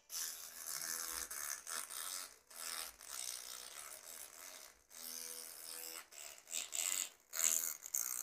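A tiny keypad-mobile-phone loudspeaker driven by a car stereo playing a song, sounding thin and harsh with a lot of hiss over the music and several brief gaps. The speaker is being overdriven and is overheating, close to burning out.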